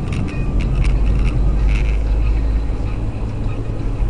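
Car driving, heard inside the cabin: a steady, low rumble of engine and tyres on the road, with a few short clicks in the first second and a half.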